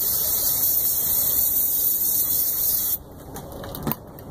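Aerosol brake cleaner spraying in one long, steady hiss that cuts off suddenly about three seconds in.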